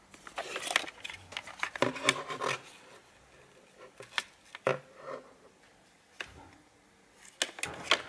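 Handling noise as a plastic vacuum floor-brush attachment is lifted out of a cardboard box and turned over in the hand: rubbing and scraping against cardboard and plastic in the first couple of seconds, then scattered sharp clicks and taps.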